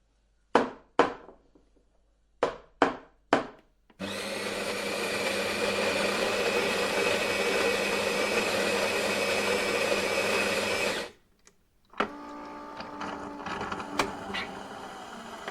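Five sharp clicks, then an electric coffee grinder's motor starts about four seconds in and grinds steadily for about seven seconds before cutting off abruptly. About a second later a quieter steady whirring starts, with a single click partway through.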